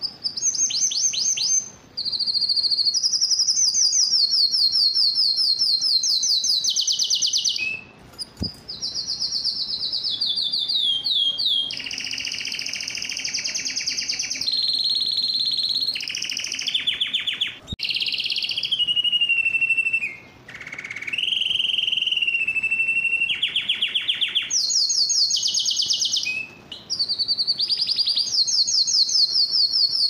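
Canary singing a long song of rapid rolling trills: each trill repeats one note many times a second for a second or two, then switches to a new note at a different pitch, with a few short breaks.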